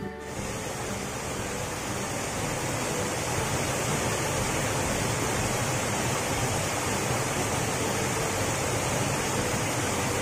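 Water of a small forest stream rushing over a series of low rock ledges and boulders: a steady, even rush of white water.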